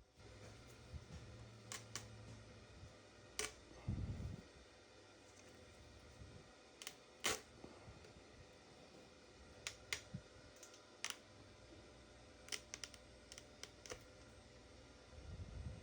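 Scattered sharp clicks and light knocks as a washing machine's drain pump and its parts are handled, with a low thud about four seconds in and another near the end.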